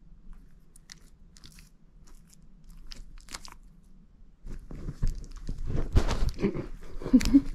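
A mini goldendoodle biting and chewing on his toy: faint scattered crunches at first, then much louder and busier crunching about four and a half seconds in.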